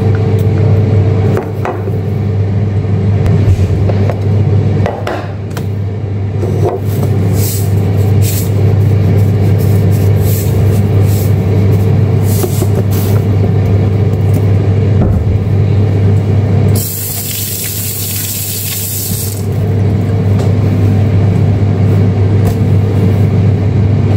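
Air fryer's fan running with a steady hum while it preheats, with light clicks and taps over it. A hiss lasting about two seconds a little past two-thirds of the way through.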